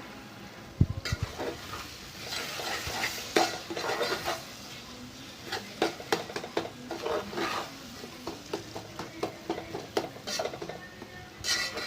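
A spoon stirring and scraping in a pan of simmering curry gravy, with irregular clinks against the pan and a light sizzle.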